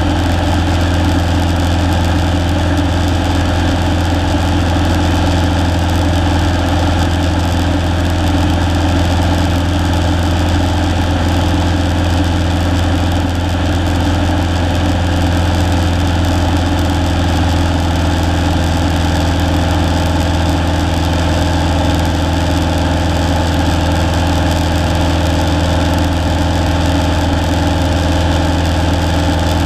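Cessna's single piston engine and propeller droning steadily, heard from inside the cockpit, with no change in power.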